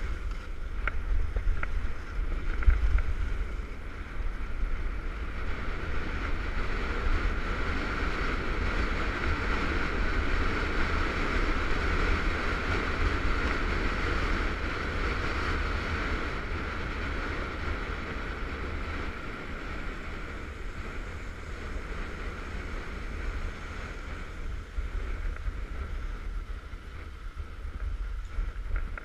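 Skis running on a groomed piste: a steady hiss and scrape of the skis on packed snow, with wind buffeting the microphone in a low rumble. The hiss is strongest in the middle and eases off later on.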